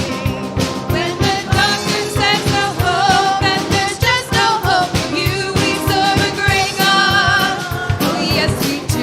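Live gospel worship song: sung melody with vibrato over a band, with a steady drum beat.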